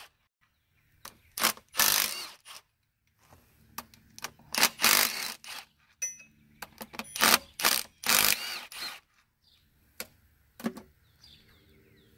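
Cordless impact wrench hammering in several short bursts, breaking loose and spinning out the oil pump mounting bolts on a John Deere 6466 diesel engine block.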